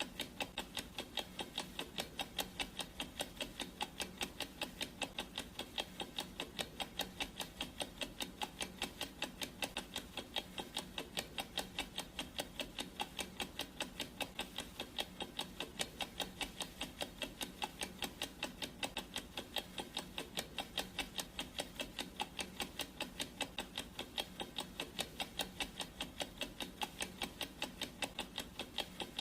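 Clock ticking sound effect: steady, evenly spaced ticks at an unchanging pace.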